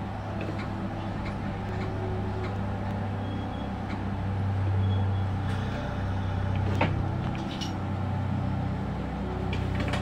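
Kintetsu electric train running slowly, heard inside the driver's cab: a steady low hum with scattered light clicks and one sharper click about seven seconds in.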